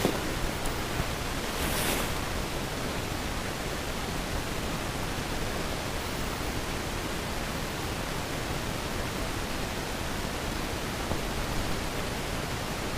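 Steady hiss of outdoor background noise, with a brief rustle about two seconds in.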